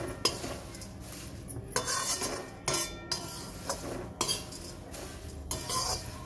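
Perforated steel spatula scraping round a metal kadhai, tossing dry thin poha flakes that rustle as they are dry-roasted. The strokes come about one a second.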